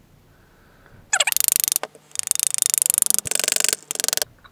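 Rapid ratchet-like clicking as a fastening on the stainless forge burner tube is drawn tight. It comes in four quick runs, starting about a second in.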